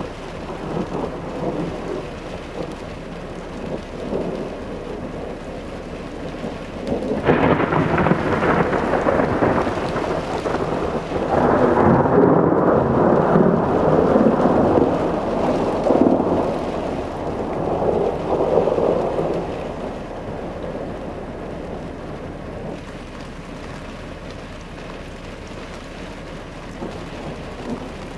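Thunder during a snowstorm (thundersnow): a rumble that sets in sharply about seven seconds in, rolls on loudest for several seconds, then fades away about twenty seconds in, over a steady hiss of precipitation and wind.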